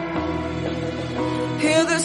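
Background music: an instrumental stretch of a song with steady held notes, swelling louder near the end.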